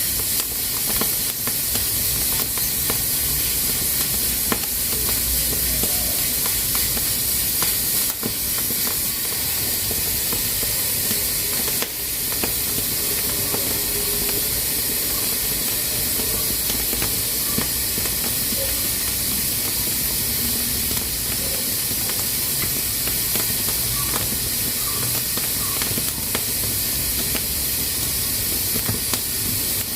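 Pressure cooker letting off steam through its valve: a steady hiss, with a few faint clicks.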